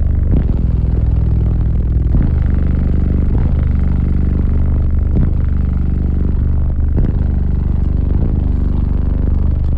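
Four American Bass Hawk 15-inch subwoofers in a Scion xB playing loud, deep bass, with a sharp hit about every second and a clattering rattle from the car's body. The owner traces the rattle to roof panels he put in himself and did not fit right.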